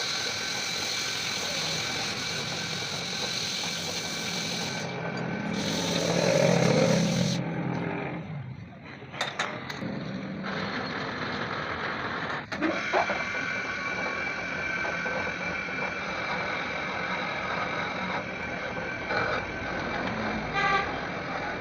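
Tractor engine running steadily, swelling louder about six seconds in and easing off, with a couple of sharp knocks.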